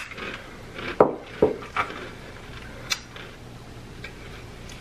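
A few short clinks and knocks of chopsticks and a metal bowl against each other and the table, about four in all, the loudest about a second in.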